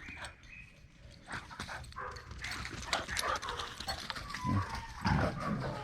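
Dogs barking excitedly in a commotion, a run of short, sharp barks coming thick and fast from about a second in.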